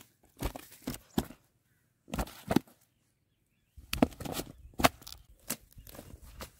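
Irregular slaps and thumps from a large rohu flapping and being handled against the hands and dry ground, about a dozen in all, with a low rumble underneath in the second half.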